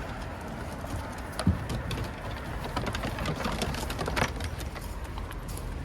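Scattered light clicks and scuffs from dogs moving about, over steady outdoor background noise.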